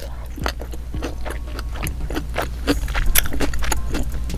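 Close-miked eating sounds: wet chewing with many quick mouth clicks and lip smacks, over a steady low hum.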